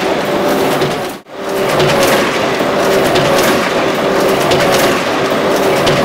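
Heidelberg Original cylinder die-cutting press running: a steady mechanical clatter from the cylinder and gripper bars, with a couple of steady tones and repeated sharp clacks. The sound drops out briefly about a second in.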